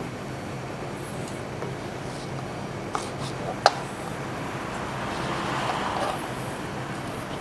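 Kitchen knife working through lemon quarters on a plastic chopping board: two sharp taps about three seconds in, then a longer slicing rasp a couple of seconds later, over a steady low background hum.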